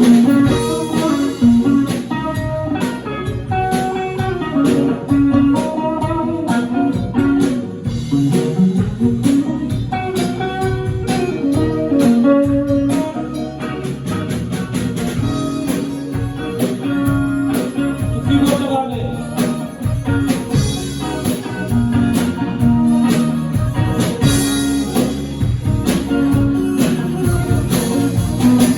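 Band playing live at a sound check: guitar lines over a drum kit, continuous and fairly loud.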